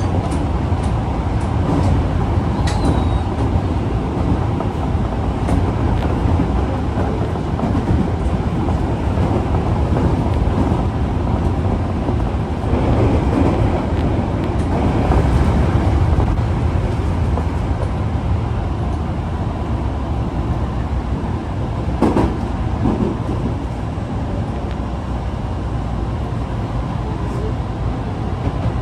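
Osaka Metro 22 series subway car running between stations: a steady low rumble of wheels and traction equipment, with occasional brief clicks from the track. The uploader labels this car, No. 22962, a car with an abnormal running noise.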